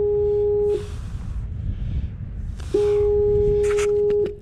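Minelab CTX3030 metal detector sounding a steady mid-pitched tone twice, each held about a second and a half, with a few sharp clicks near the end.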